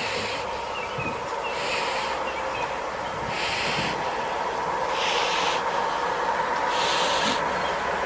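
Harsh hissing bursts, about one every second and a half, from a leopard struggling with a porcupine whose quills are raised. A steady hum runs underneath.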